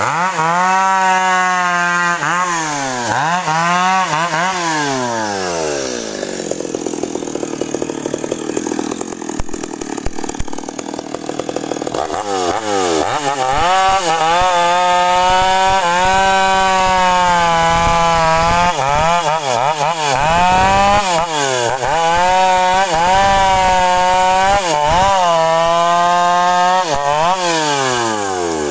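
Stihl chainsaw cutting sengon (albizia) wood. The engine revs up and down several times, then runs at high revs for long stretches with short dips, and drops back near the end.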